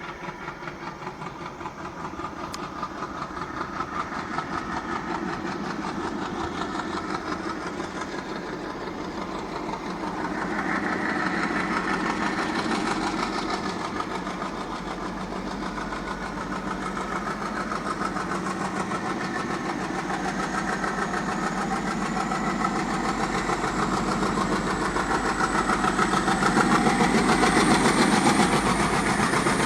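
Twin Alco WDM-3D diesel-electric locomotives running, their engine sound growing steadily louder as they draw near, with a faint high whine rising in pitch in the second half.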